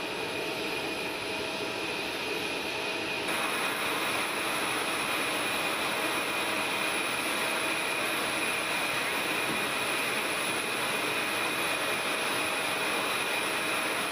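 Jet turbine running steadily: a constant broad rush with a high, unchanging whine.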